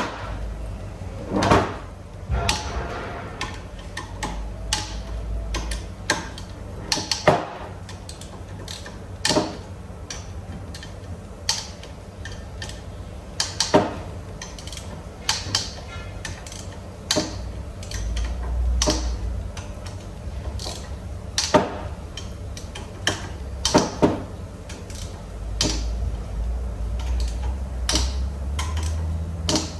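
Irregular clinks and knocks of hand tools and metal engine parts being handled while an engine is taken apart, with a low rumble that comes and goes.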